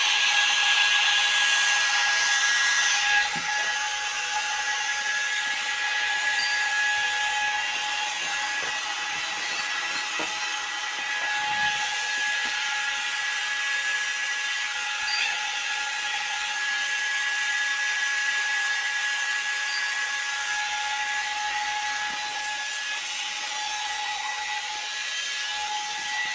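Electric air pump of a Bestway airbed running steadily, a high motor whine over the hiss of air being blown in as the mattress inflates.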